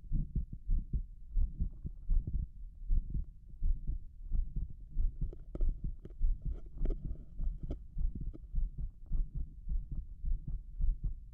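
A man's heartbeat heard through a stethoscope on his chest: rapid, loud lub-dub beats in a steady rhythm, with a few brief scratchy clicks around the middle.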